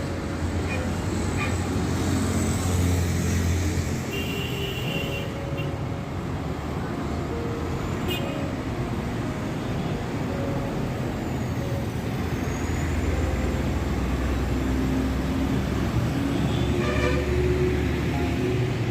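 Road traffic passing steadily, with engine rumble and short vehicle horn toots, the clearest about five seconds in.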